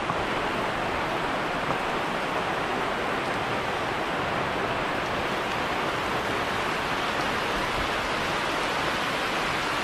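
Steady rain falling on foliage and wet ground, an even hiss with no pauses or changes.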